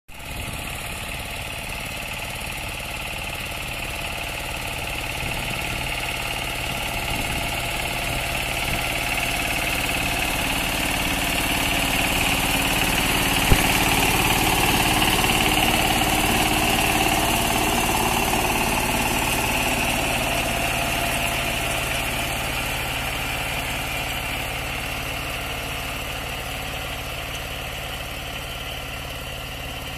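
15 hp mini tractor engine running steadily while pulling a rotary tiller through soil. It grows louder as it comes near, passes close about halfway through, then fades as it moves away. A single sharp knock sounds as it passes.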